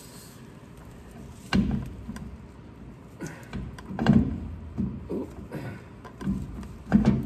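Clunks and knocks of a truck drive shaft being shifted and worked into position: three loud knocks a few seconds apart, with smaller bumps between.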